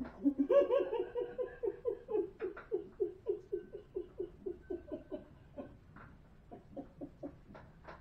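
A person laughing in a long, rhythmic run of short 'ha' pulses, about four a second, which grow fainter and trail off near the end.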